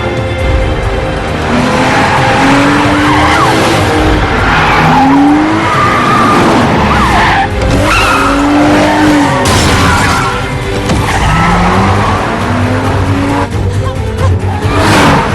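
Car-chase film sound: a car's engine running hard with repeated short tyre squeals and sudden sweeping passes, mixed over dramatic score.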